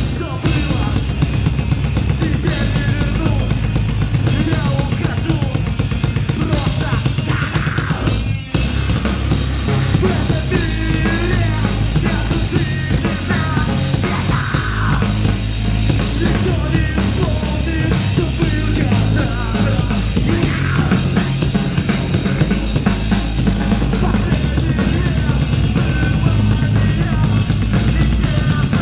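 Rock band playing live, with a driving drum kit and bass, dropping out briefly about eight seconds in before coming back in full.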